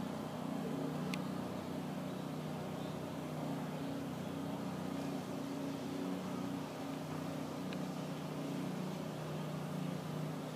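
Steady low hum, with two faint short clicks, one about a second in and one later.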